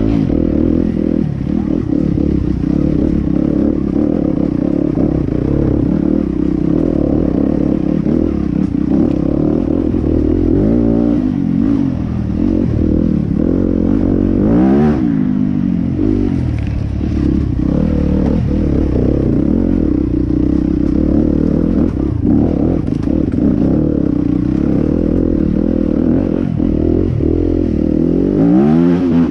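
2018 Yamaha WR250F single-cylinder four-stroke enduro motorcycle with an Akrapovic exhaust, running under way. Its revs rise and fall several times, with sharp rev swings about halfway and near the end.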